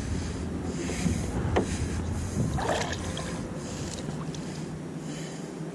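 Wind rumbling on the microphone of a chest-mounted camera in a kayak, dropping away about four seconds in, with a couple of faint knocks as a magnet-fishing rope is hauled back in hand over hand.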